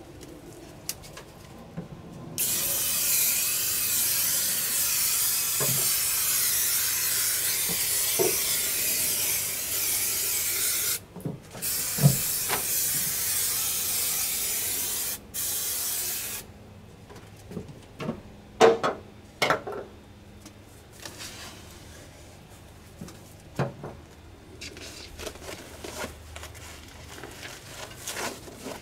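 Aerosol spray adhesive can spraying in two long steady bursts, the first about eight seconds and the second about five, followed by a few light knocks and rustles.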